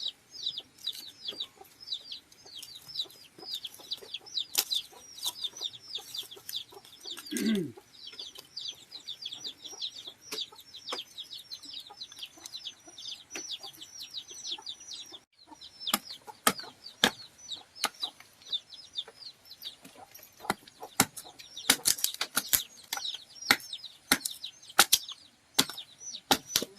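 Chickens, with chicks peeping constantly in short, high, falling peeps, several a second. Scattered sharp clicks and taps, which come thicker in the second half, and one lower falling call about seven and a half seconds in.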